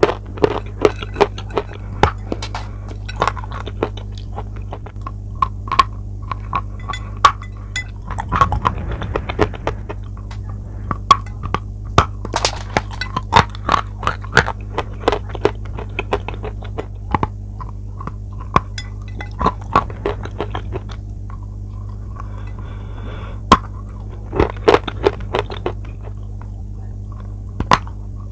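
Close-miked biting and chewing of a hard white chalk bar coated in dried clay: sharp crunches and crackles, several a second, with pauses between bites. A steady low electrical hum runs underneath.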